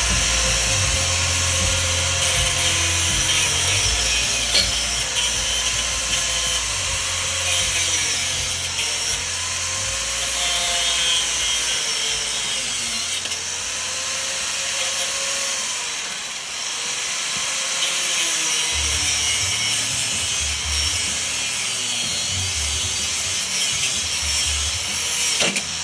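Grinder with an abrasive disc grinding on a mower shaft, its whine rising and falling as it bites and eases off. Near the end a sharp crack as the grinding disc bursts, and the grinding stops.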